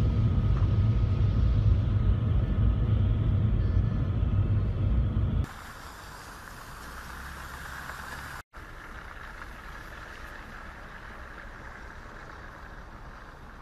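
Deep engine and tyre rumble of a road vehicle, heard from inside its cabin while driving. About five seconds in it cuts off abruptly to a much quieter, steady rushing hiss that drops out for a moment a few seconds later.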